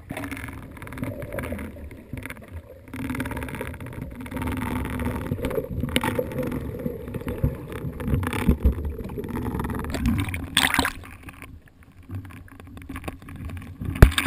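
Muffled underwater sound through a submerged camera housing: a steady low rumble of water with irregular knocks and sloshing. There is a short hissing splash about three quarters of the way in, and a sharp loud splash near the end as the camera breaks the surface.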